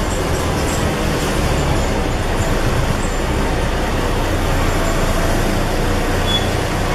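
Scania N113 double-decker bus's diesel engine running, with road noise, heard from inside the bus as a steady low rumble.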